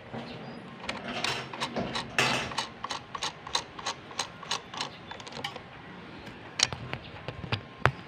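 Handling noise from a camera held and adjusted close to the microphone: irregular clicks, taps and short rustles at uneven spacing.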